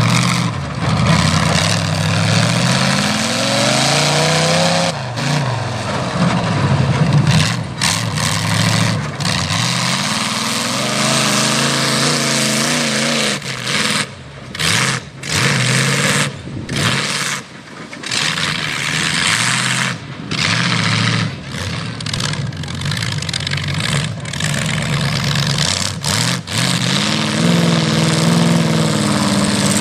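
Mega truck's engine revving hard as it drives through a mud pit, its pitch climbing and falling again and again as the throttle is worked, with several brief dips in the sound midway.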